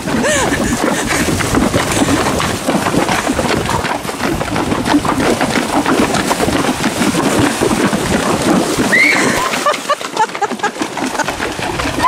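Tennessee Walking Horse wading through a shallow, rocky mountain stream, its hooves churning and splashing the water steadily; the splashing thins out near the end.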